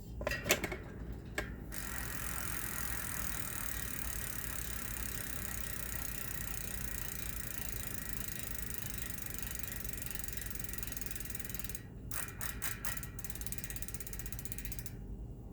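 Shimano Ultegra rear hub freewheeling, its 18-point sawtooth ratchet clicking inside the freehub body. A few separate clicks open it, then a fast, steady buzz of clicks runs for about ten seconds, and it falls back to slower, separate clicks near the end.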